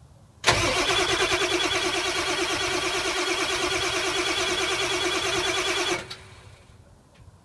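Ford 7.3-litre Power Stroke V8 diesel cranking on the starter with a steady rhythmic churn for about five and a half seconds, then the starter stops abruptly without the engine catching. It is a cold start with the glow plugs disconnected, so the engine won't fire and puffs white smoke.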